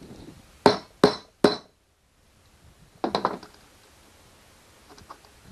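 Three sharp hard knocks about a third of a second apart, then a short clatter of smaller knocks about three seconds in, as a plastic push-type rivet clip is pushed and tapped into its hole in the kayak's plastic hull.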